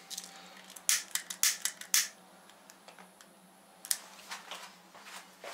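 A disposable lighter being struck, a quick run of sharp clicks about a second in, then another click near the end as the flame catches the corner of a paper towel.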